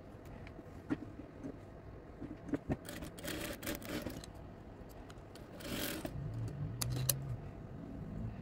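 Cotton fabric pieces rustling and sliding as they are handled, with a few light clicks, two longer rustles in the middle, and a low hum near the end.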